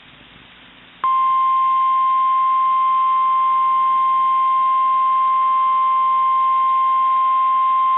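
NOAA Weather Radio 1050 Hz warning alarm tone: a single loud, steady beep that switches on about a second in, after a moment of faint radio hiss. It is the alert that announces a warning message is about to follow.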